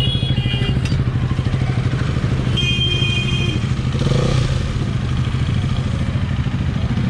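KTM Duke's single-cylinder engine idling steadily through a freshly fitted aftermarket exhaust, with no revving. A horn sounds briefly about three seconds in.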